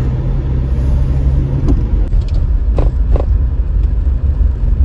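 Steady low road and engine rumble inside a moving car's cabin, with two short clicks about three seconds in.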